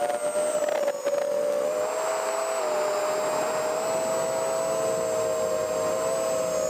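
Brushless motors (1105 5200kV) and 3-inch propellers of a toothpick micro FPV quadcopter whining in flight. The whine is several close tones that drift apart and back together as the motors change speed with throttle.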